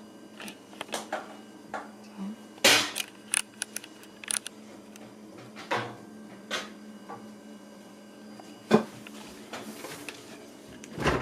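Scattered clicks and knocks of a new fridge freezer being handled: its door and plastic drawers opened and shut, with the loudest knocks about a third of the way in and again near the end.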